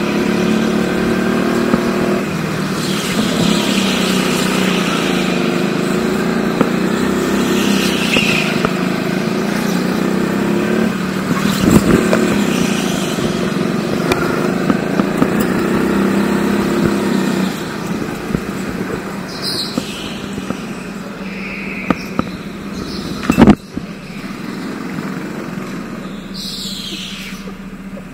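Go-kart engine running, heard on board while lapping, its pitch rising and falling with the throttle. There is a sharp knock about halfway through and a louder one near the end, and the engine is quieter over the last third.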